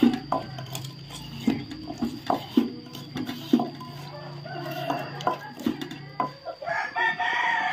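Wooden pestle knocking in a mortar in irregular strokes, pounding ingredients for papaya salad. A rooster crows near the end.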